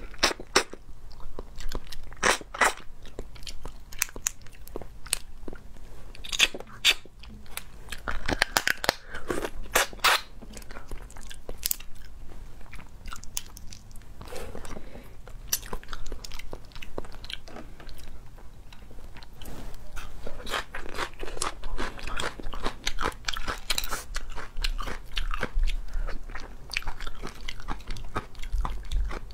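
Hard shells of marinated crustaceans cracking and crunching as they are bitten and pulled apart, with chewing between the irregular, sharp cracks.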